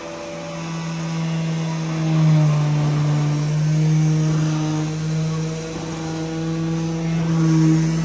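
Concrete mixer truck's chute vibrator buzzing with a loud, steady hum as the concrete slurry discharges down the chute.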